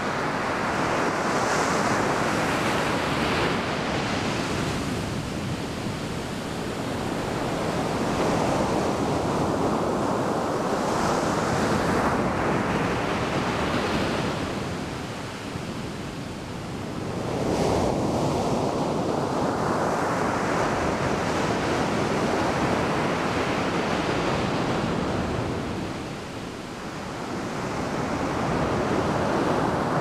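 Small waves breaking and washing up a sandy beach: a continuous surf hiss that swells and eases, with lulls about halfway through and again near the end before the next wave comes in.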